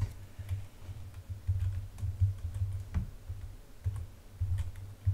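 Computer keyboard keys clicking at an irregular pace, a dozen or so scattered taps, over low uneven thumps.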